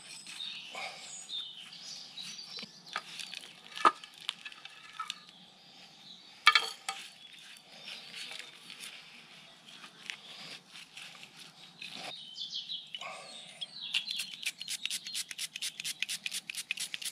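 Gloved hands working and pressing potting soil into a ceramic pot around a small tree's roots: soft rustling and crumbling with scattered clicks and a couple of sharp knocks. Near the end comes a quick even run of ticks, about eight a second.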